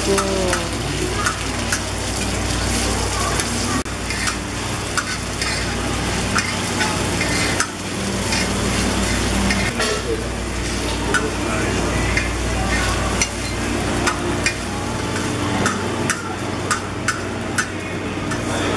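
Tteokbokki rice cakes frying in oil on wide black pans, a steady sizzle under frequent irregular clicks and scrapes of a metal spatula and tongs against the pans as they are stirred and scooped.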